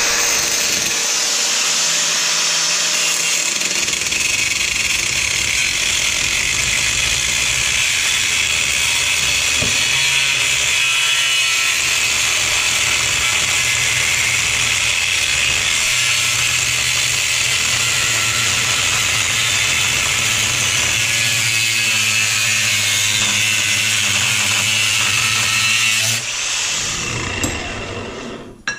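Electric angle grinder running steadily against a piece of aluminum held in a bench vise, grinding the metal to shape a bracket. The grinder is switched off about 26 seconds in and winds down over the next couple of seconds.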